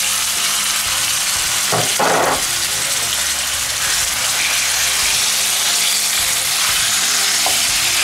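Curry-coated chicken pieces sizzling loudly in hot oil in a frying pan, moments after going in, with a short clatter about two seconds in.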